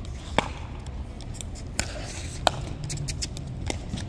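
Sharp plastic pops of a pickleball rally, paddles striking the hollow plastic ball and the ball bouncing on the hard court. There are four main pops at irregular intervals, the loudest in the middle, over a low steady background noise.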